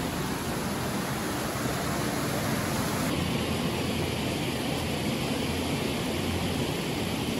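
Steady rush of a stream pouring through a narrow sandstone gorge into a swirling pothole. The tone shifts slightly about three seconds in.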